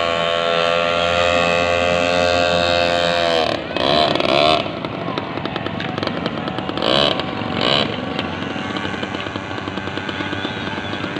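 Sound played by a miniature squid-fishing boat model during a sound check: a steady droning tone that falls in pitch about three and a half seconds in. Short wavering blasts follow, once about four seconds in and twice near seven to eight seconds, over a continuing busy rumble.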